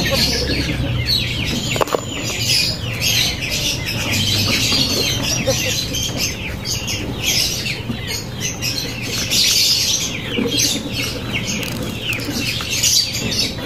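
Many small birds chirping densely and continuously, with a single light click about two seconds in.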